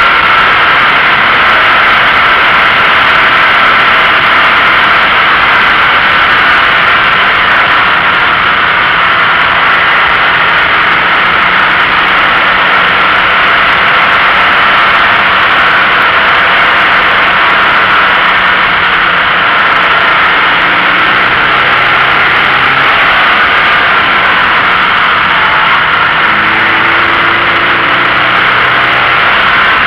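Loud, steady wind and road noise rushing over a low, front-mounted camera on a moving Toyota GT86, with the car's 2.0-litre flat-four engine running faintly underneath at cruising revs. The engine note shifts a little in the last ten seconds.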